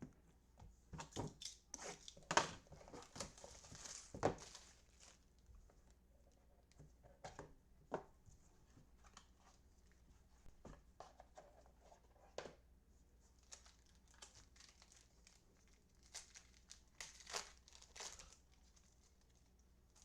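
Trading-card packaging being torn and crinkled, with cards shuffled by hand, in short spells of rustling and crackling that come thickest at the start and again near the end.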